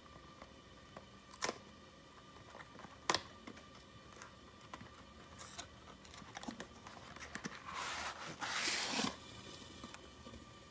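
Cardboard pizza-dough box being handled and opened: two sharp clicks about a second and a half apart, then a rustling scrape and tear of cardboard lasting about a second and a half near the end.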